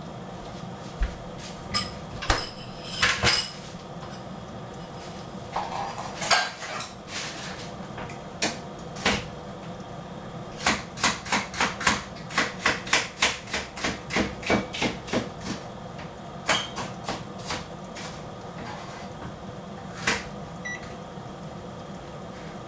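Sharp clicks and knocks of a utensil against a bowl, with a fast run of about three taps a second for several seconds in the middle: eggs being beaten for the fried noodles.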